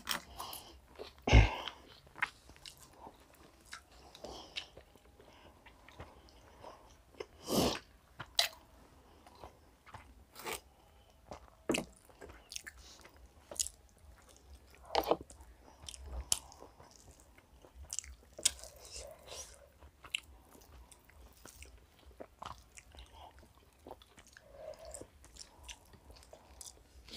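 Close-up eating sounds of chicken biryani eaten by hand: chewing, biting and soft lip and mouth clicks, scattered unevenly, with a few louder knocks now and then.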